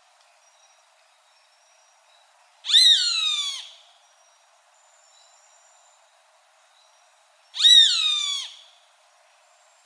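Roadside hawk calling twice, about five seconds apart: each call is a harsh, drawn-out scream of about a second that rises sharply and then slides down in pitch.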